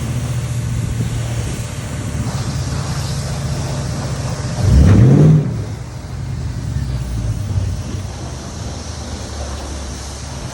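Mercedes-Benz W124 E500's swapped M113 V8 running steadily, with one short, loud rev about halfway through, its pitch rising sharply before it drops back.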